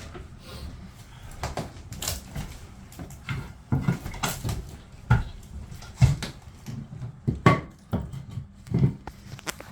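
Irregular knocks, bangs and clatters of hand demolition: interior wall panelling of a houseboat bathroom being pried, struck and pulled out, about a dozen sharp hits with the loudest around the middle.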